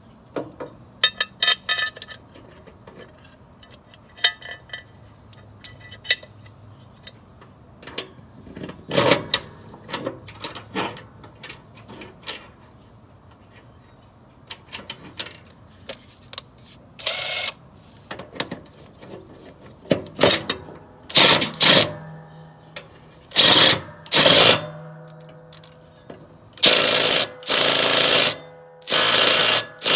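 Light metal clinks and taps as a mower blade and its bolt are fitted to the deck spindle. Then a DeWalt cordless impact gun fires a series of short hammering bursts, driving the blade bolt tight.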